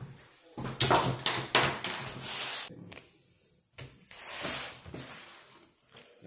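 A run of knocks, scrapes and rustles from a folder being handled on a wooden table, loudest in the first three seconds, then a noise that swells and fades about four seconds in.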